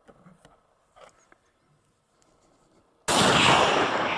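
A hunting rifle shot about three seconds in: a sudden loud blast that rings on and fades slowly. A few faint taps come before it.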